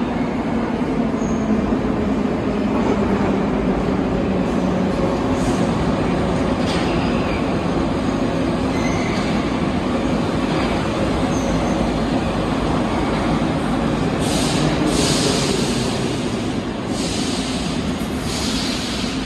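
An 81-717/714 metro train pulls into the station alongside the platform, with a continuous heavy rumble of wheels and running gear and a low motor hum. There are a few faint wheel squeals, and several short hissing bursts near the end.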